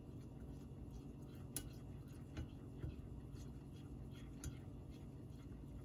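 Silicone-coated whisk stirring condensed milk in a stainless steel saucepan: faint soft scraping with a few light, scattered ticks against the pan, over a low steady hum.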